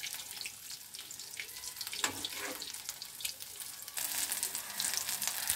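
Soya-chunk pakoras deep-frying in hot mustard oil in a kadai, sizzling with a steady crackle of small pops, and a short scrape of the spatula about two seconds in. The sizzle gets louder about four seconds in.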